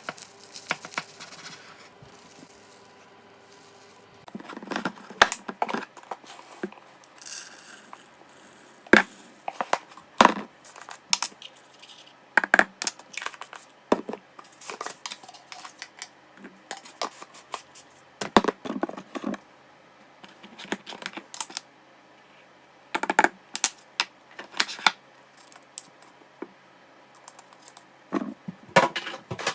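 Irregular sharp clicks and knocks, some in quick clusters, with light rustling between them: small hard objects being handled.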